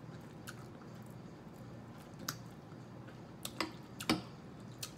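Someone eating spaghetti close to the microphone: quiet chewing with a handful of short, sharp clicks and smacks, the loudest about four seconds in.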